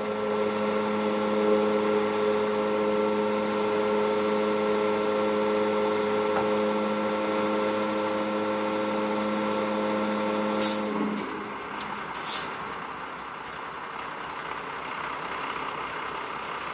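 Vacuum tank truck's pump system running with a steady hum. About ten seconds in, the air parking brake is released with a short hiss and the hum cuts off: the system shutting itself down through its park-brake safety interlock. A second short air hiss follows.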